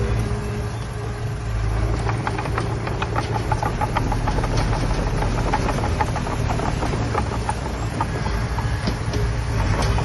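Heavy diesel earthmoving machinery running with a steady low drone. From about two seconds in, rapid clanking and rattling is laid over it, of the kind made by crawler tracks or by soil and stones being worked.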